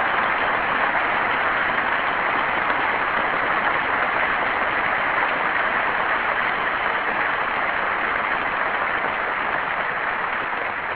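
An audience applauding steadily, dying down near the end.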